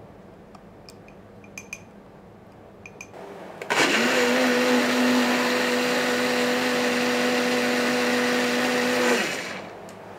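Personal bullet-style blender blending a salad dressing of oil, apple cider vinegar, raw onion and garlic. The inverted jar is pressed onto the motor base, and the motor runs at one steady pitch for about five seconds, starting suddenly and winding down near the end. A few light clicks of the jar being handled come before it.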